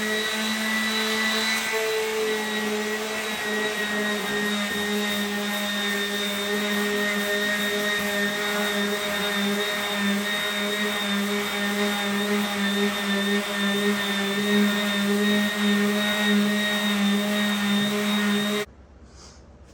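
Electric sander running steadily against a cherry wood bench, a constant motor hum with a grinding hiss. It cuts off suddenly near the end.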